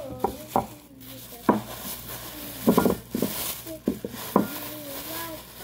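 Breakable bowls being handled and taken out of a plastic bag: the bag rustles and the bowls give a handful of sharp knocks and clinks, with a quick cluster of them about three seconds in.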